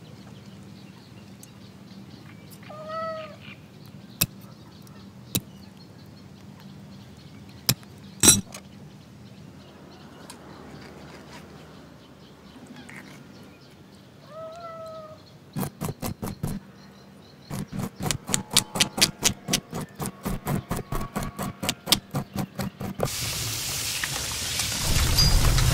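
A domestic cat meows twice while a knife scales a fish, with a few sharp clicks, then a quick run of knife-scraping strokes, about four a second. Near the end the fish sizzles in a frying pan.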